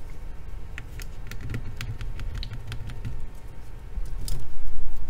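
Cotton swab scrubbing over the circuit board's tactile-button contacts with alcohol, making light scratchy ticks and clicks, with louder handling of the board about four seconds in.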